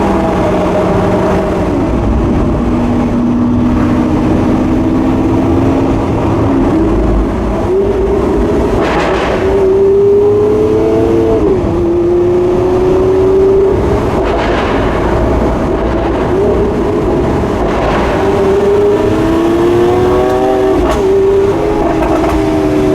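Lamborghini Aventador S's naturally aspirated V12, heard from inside the cabin, pulling at moderate revs. The pitch climbs slowly and drops sharply at each gear change, about five times. A few short rushes of noise come in between the shifts.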